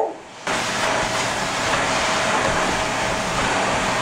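Shark upright vacuum cleaner running on its hose attachment: a steady rush of suction with a faint steady whine.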